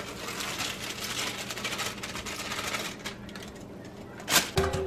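Plastic cake-mix bag crinkling and rustling in rapid crackles as it is shaken and squeezed to pour the dry mix into a glass bowl, with a louder crackle and a soft thump near the end.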